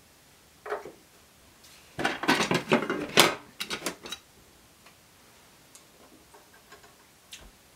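Clear plastic bobbin storage box handled and bobbins taken from it: a fast run of light plastic clicks and clatter about two seconds in, then a few lighter clicks, with faint ticks near the end.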